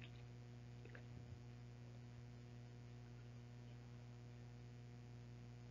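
Near silence: room tone with a steady low hum.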